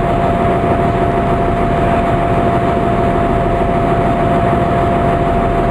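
Steady running noise heard inside the passenger saloon of a Class 165 diesel multiple unit: underfloor diesel engines and wheels on the track, with a constant whine on top.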